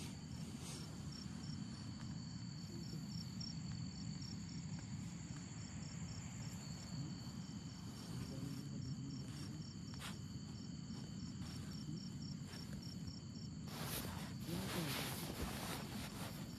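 Crickets and other night insects chirping steadily, one of them in regular pulses, over a low steady rushing noise. A louder rustle comes near the end.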